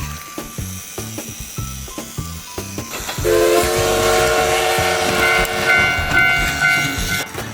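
A toy's electronic horn sound starting about three seconds in: a loud, steady chord of several held tones with hiss, over a light rhythmic clicking beat.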